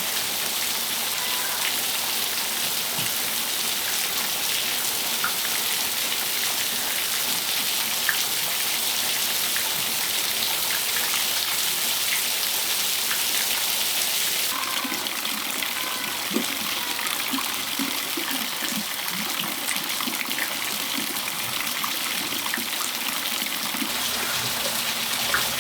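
Steady rain falling on a patio: an even hiss with the odd single drip standing out. About halfway through, the hiss turns brighter.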